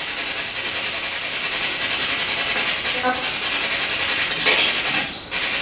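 Loud steady hiss of a heavily boosted audio recording, with a brief faint voice-like fragment about three seconds in that the investigators caption as the word "Des Moines", offered as an EVP reply. Brighter swells of hiss come near the end.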